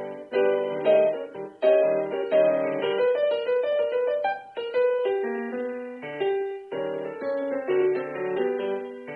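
Piano music accompanying a silent film: a lively run of notes and chords.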